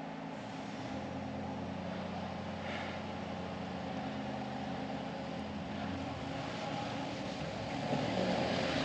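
A steady engine hum that grows a little louder near the end.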